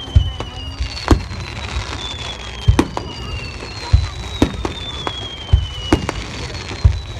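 Fireworks display: aerial shells bursting in a string of sharp booms, roughly one every half second to second, with several long, high whistles that each slowly fall in pitch.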